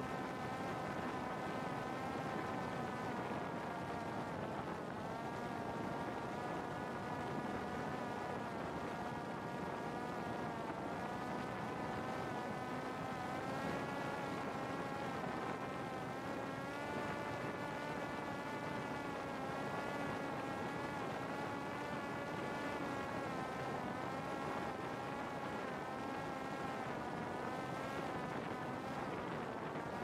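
Parrot Disco fixed-wing drone's electric motor and rear pusher propeller whining steadily in flight, its pitch drifting gently up and down, over a steady rushing noise.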